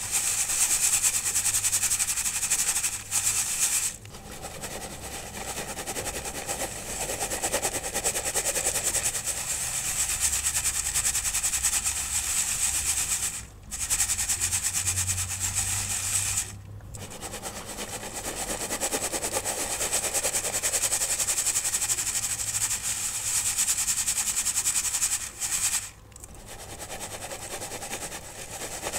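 Dry powdery pigment being sifted through a mesh sieve: a dense, scratchy, crackling rustle made of countless fine grains, stopping briefly three or four times.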